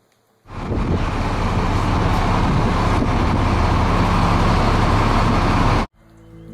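Loud, steady rushing noise with a low hum underneath, starting abruptly about half a second in and cutting off suddenly near the end.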